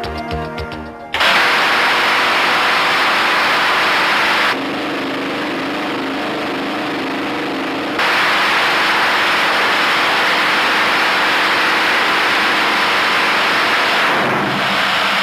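XM301 20 mm three-barrel Gatling cannon firing on a test stand: a continuous ripping roar of rapid-fire shots that starts suddenly about a second in. It drops to a lower level from about four and a half to eight seconds, then returns at full level and fades out near the end.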